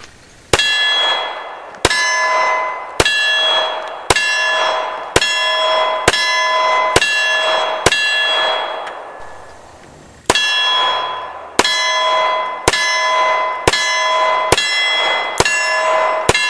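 Pistol shots at about one a second, each followed by the clang of an AR500 steel target ringing out in several steady tones. A string of eight shots from the Glock 21 SF, a pause of about two seconds, then a string of seven from the 1911.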